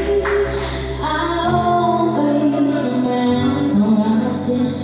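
A woman singing into a handheld microphone through the sound system, over backing music whose low notes change every second or two.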